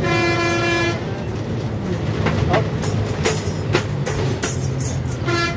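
Bus horn sounding a flat, steady note for about a second, then again briefly near the end. Between the honks, the bus engine rumbles steadily and the bus rattles with scattered sharp clicks.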